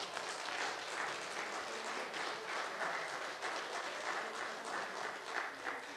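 Congregation applauding: many hands clapping at once, steady throughout.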